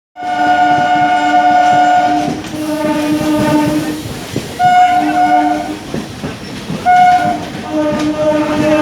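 DEMU train's horn blowing a string of long and short blasts that alternate between a higher and a lower note, over the rumble of trains running in.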